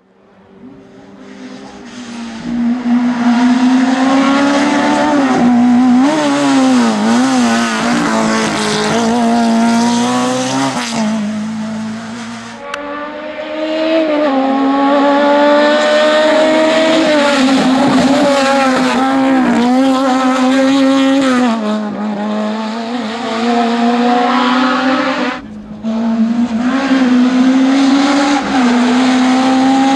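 Citroën AX A 1/2 hill-climb car's highly tuned four-cylinder engine revving hard to high rpm, its pitch climbing and dropping again and again with gear changes and lifts. It fades in over the first few seconds and breaks off abruptly twice.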